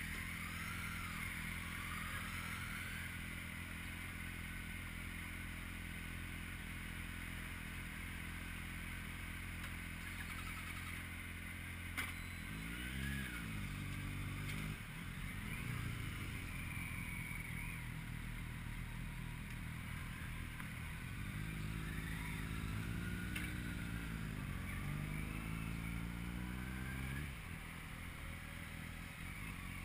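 Motor vehicle engine running steadily, its pitch climbing and falling as it revs up and eases off, once briefly about twelve seconds in and again over several seconds later on. A single sharp click comes about twelve seconds in.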